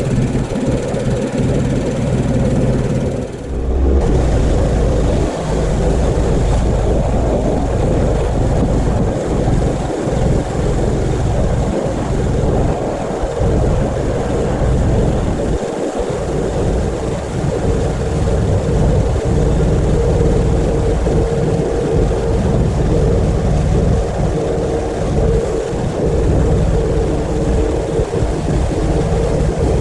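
Pressure washer running steadily with a constant hum, its spray hitting house siding, with a short break in the spray about three and a half seconds in.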